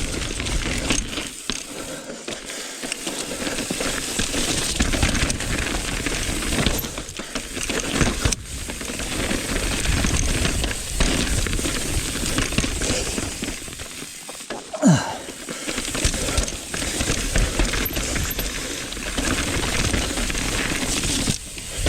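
Mountain bike clattering and rattling over rocky trail, with tyre noise and many small clicks and knocks over a steady rush. A short rising squeak comes past the middle.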